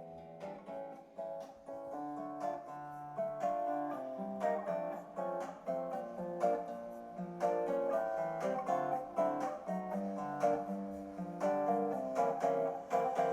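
Background music played on plucked strings, a gentle picked melody that fades in gradually.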